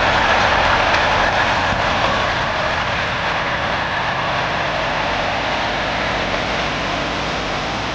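Heavy machine's engine running hard under load, with a high turbocharger whine over a steady, loud, dense engine noise that eases off slightly over the seconds.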